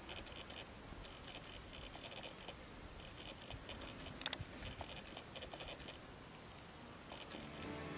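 Vervet monkeys foraging among vegetable scraps on the ground: faint scratching, rustling and chewing, with one sharp click about four seconds in. Faint chirps repeat in short clusters in the background, and music fades in near the end.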